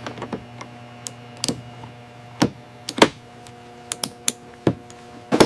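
Hand tools clicking and knocking on metal during a bolt-torquing sequence: about a dozen sharp, irregular clicks and taps, the loudest about three seconds in and at the end, over a steady hum.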